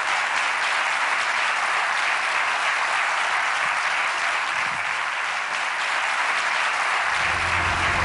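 A large seated audience applauding steadily, with music coming in underneath near the end.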